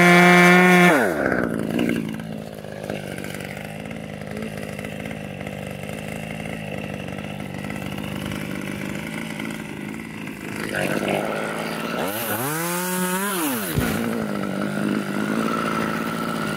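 Chainsaw held at full throttle, then let off about a second in and left idling. A little past the middle it is blipped, its pitch rising and then falling back to idle.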